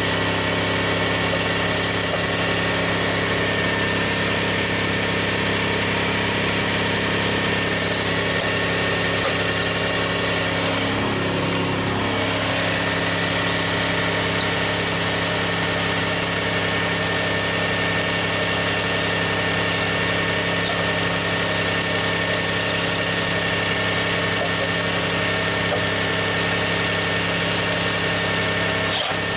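The 1MZ-FE V6 of a 540,000-mile Toyota Sienna idling steadily and evenly. It shows no misfire counts after an ignition repair that fixed a cylinder 5 misfire.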